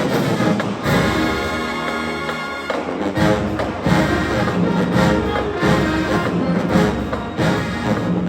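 Marching band brass section playing loud, with a long held chord about a second in, then short rhythmic phrases.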